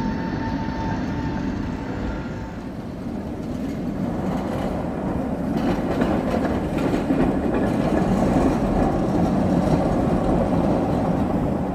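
Tatra T3 tram running across a junction of tram tracks, its wheels rumbling on the rails and clacking over the track crossings; it grows louder about halfway through as it passes closest.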